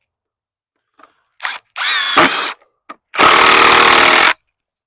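Power drill driving screws into pallet wood: a short burst, a spin-up with a rising whine, then a steady run of about a second.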